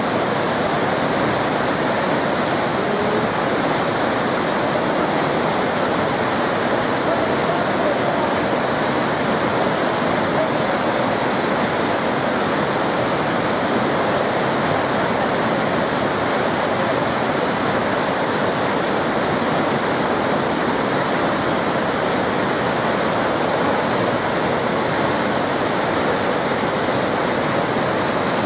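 Waterfall rushing steadily, an even, unbroken roar of falling water.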